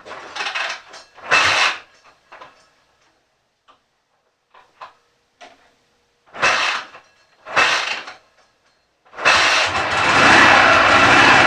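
Cold Dnepr MT 10-36 flat-twin engine being cranked in four short attempts, then catching about nine seconds in and running steadily and loudly.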